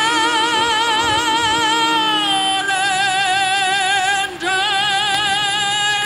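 A man singing long, high held notes with a wide, even vibrato, breaking off briefly about four seconds in before holding another note.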